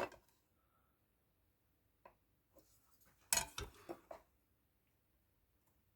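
A short clatter of small hard objects being handled: a light tap about two seconds in, then a quick run of clinks and knocks about a second later, with near silence around them.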